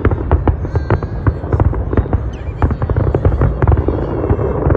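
Fireworks display: a rapid, unbroken string of bangs and crackles over a continuous low rumble.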